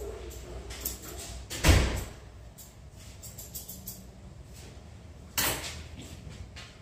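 Grooming scissors snipping a schnauzer's coat in a run of faint, quick clicks. Two louder knocks with a rush of noise come through, the loudest about two seconds in and a weaker one about five seconds in.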